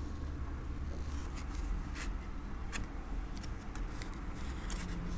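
Paper rustling and light clicks as fingers handle and turn the pages of a small storybook booklet, over a low rumble.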